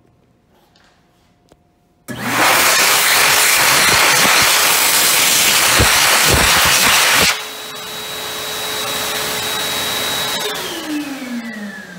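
A KINGWE JetDry KW-1000 high-speed hand dryer, an Xlerator copy, kicks on about two seconds in and blasts air onto a hand, with a loud rush over a steady motor whine. About seven seconds in the rush drops off sharply as the hand is withdrawn, while the motor keeps whining. Near the end the dryer cuts out and the whine falls steadily in pitch as the motor spins down.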